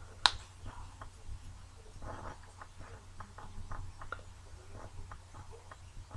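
Faint, scattered clicks and light rustling from a person shifting and handling things at a desk, with one sharper click a fraction of a second in, over a low steady hum.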